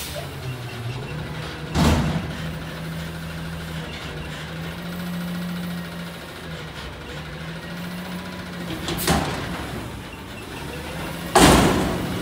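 Autocar ACX natural-gas front-loader garbage truck with a Heil Freedom body running its engine and hydraulics with a steady low hum as its front forks lift a steel dumpster over the cab. Three loud metal bangs from the lifted container, about two seconds in, about nine seconds in, and the loudest near the end.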